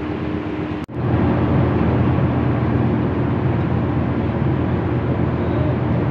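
Tugboat's diesel engine running steadily while under way, a constant hum. It breaks off for an instant about a second in, then comes back louder with a deeper hum.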